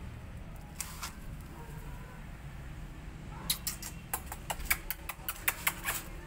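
Footsteps on a concrete path: a quick run of sharp taps starting about halfway through, over a steady low background hum.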